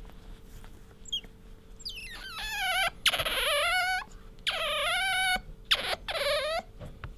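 Asian small-clawed otter squeaking: a short faint chirp, then about four loud, high, wavering squeals in quick succession, the loudest a little after three seconds in.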